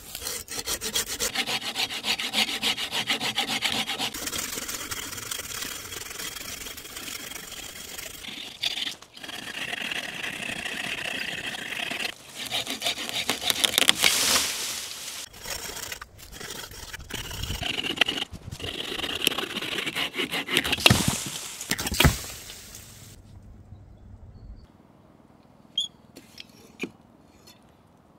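Folding pruning saw cutting through a moss-covered branch in quick, even back-and-forth strokes, with a few brief pauses. A sharp knock comes about twenty-two seconds in, as the cutting ends. After it there are only a few faint clicks.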